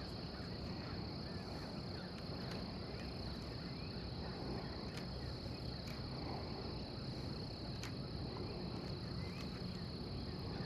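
Steady high-pitched insect chorus, one unbroken shrill tone, over a low rumbling background, with a few faint scattered clicks.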